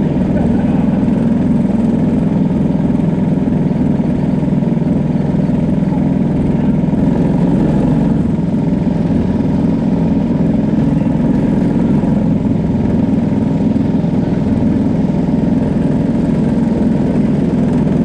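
Briggs & Stratton LO206 single-cylinder four-stroke kart engine idling steadily, with no revving.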